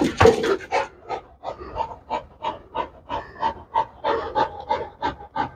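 A pit bull panting hard and fast, about three breaths a second, out of breath from the exertion of a training session.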